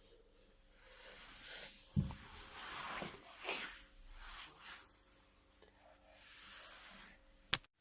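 Chiropractic adjustment: one sharp crack about two seconds in, with rubbing and rustling of hands and body on the treatment table after it and a second sharp click near the end.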